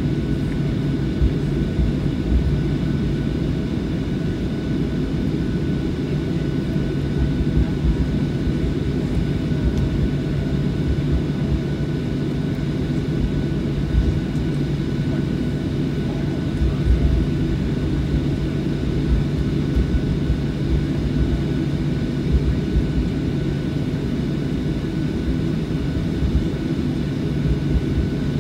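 Jet airliner engines running at a steady taxi hum, heard inside the cabin, with a thin steady high whine above it and occasional low thumps from the ride over the pavement.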